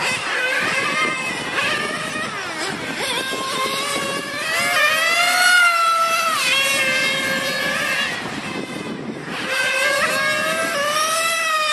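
Small two-stroke nitro engine of an on-road RC car running at high revs, its high-pitched note rising as it accelerates and falling as the throttle is lifted. There is a long climb that drops off sharply about six seconds in, then a lull near nine seconds before it revs up again.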